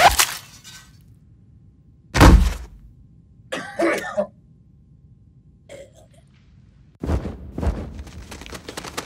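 A man coughing and choking, bleeding from a throat wound: a heavy thud about two seconds in, a choked cough around four seconds, and a longer run of ragged coughing and choking near the end.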